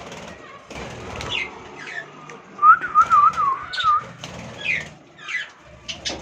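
Pet budgerigars chirping and warbling in short scratchy notes, with a quick run of six clear whistled notes about three seconds in, the loudest part.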